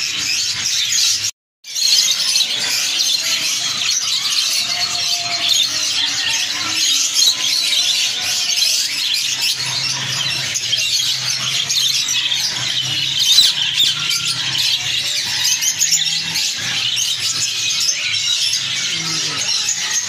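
Dense, continuous high twittering of many caged finches and other small cage birds chirping at once. The sound cuts out completely for a moment about a second and a half in.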